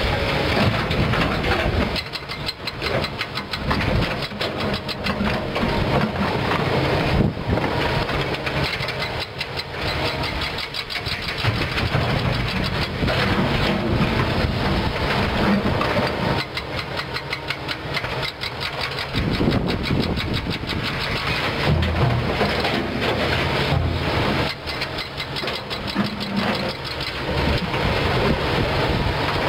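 Kobelco SK200 hydraulic excavator's diesel engine running under working load, its note rising and falling as the boom swings, dumps and digs. Rock clatters against the bucket and into the dump truck's bed.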